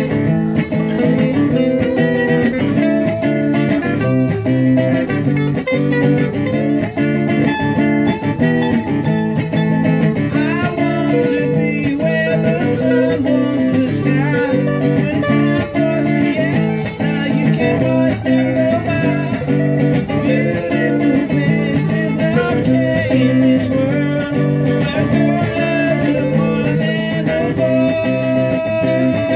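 Two acoustic guitars playing together, with a steady strummed rhythm.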